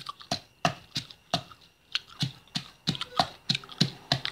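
Wooden pestle pounding garlic and chillies in an earthenware mortar: regular knocks about three a second, with a brief pause about one and a half seconds in.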